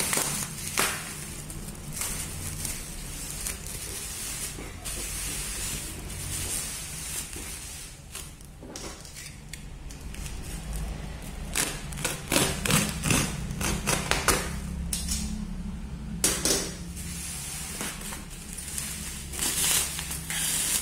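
Bubble wrap and packing tape around a cardboard parcel being handled and pulled open: irregular crinkling and crackling with sharp snaps, busier in the second half, over a low steady hum.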